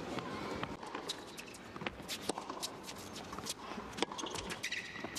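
Indoor tennis arena between points: a low crowd murmur with scattered sharp knocks and clicks on the court, and a brief squeak near the end.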